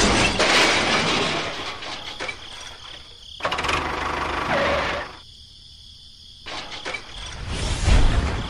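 A tractor engine running, heard in separate pieces that stop abruptly: at the start, again from about three and a half to five seconds in, and loudest near the end.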